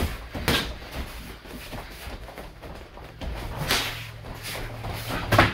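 Kickboxing sparring: gloved punches and kicks landing as a few scattered thuds, the loudest near the end.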